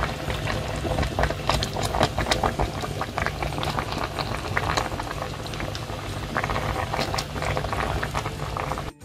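Butter-and-spice Cajun sauce boiling hard around shrimp, corn and potatoes in a seafood boil pot, with dense bubbling and popping over a steady low hum. It cuts off abruptly near the end.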